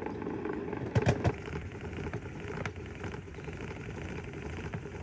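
Hand-turned portable mini washing machine on its spin cycle: a steady rattling whir of the drum being cranked round, with a few knocks about a second in.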